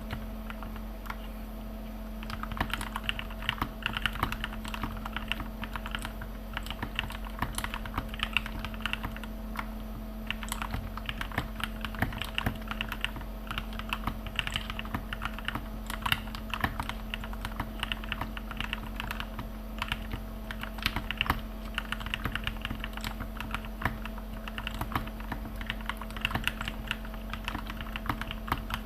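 Typing on an RK61 mechanical keyboard with lubed Gateron Milky Yellow linear switches, typed softly without bottoming out: a fast, uneven stream of soft keystroke clacks, with a short pause about a second in. A steady low hum runs underneath.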